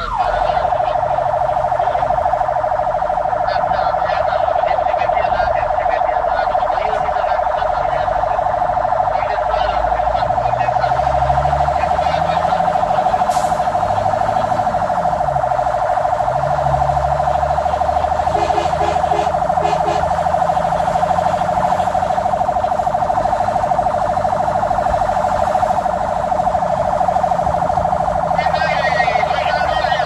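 Fire engine's siren held on one steady, unbroken tone, heard loud from inside the cab. Underneath, the truck's engine rises and falls in pitch as it changes speed partway through.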